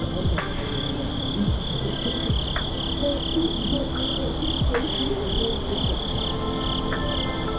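A cricket chirping in short, even pulses, about three a second, over soft background music.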